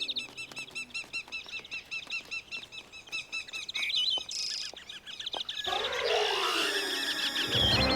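Cartoon sound effect of a flock of small birds chirping, many short chirps repeated rapidly. About six seconds in, a louder, denser swell of sliding tones takes over.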